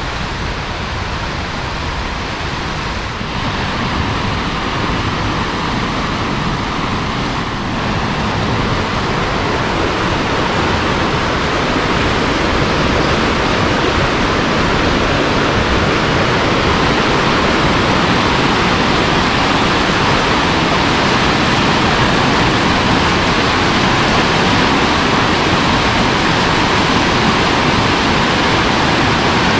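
Stevens Creek rushing over rocks, a steady water sound that grows louder over the first dozen seconds and then holds.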